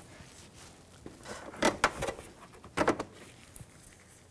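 A plastic engine-bay trim panel being handled and pressed into place. There are a few short plastic clicks and knocks, a cluster about a second and a half in and another near three seconds.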